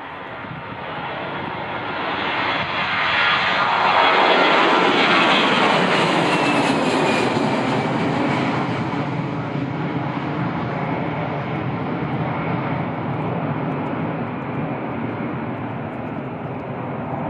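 Airbus A320's CFM56 jet engines at takeoff power as the airliner passes by. The sound builds to its loudest about four seconds in, with a high whine that falls in pitch as it passes, then settles into a steady low rumble as it moves away.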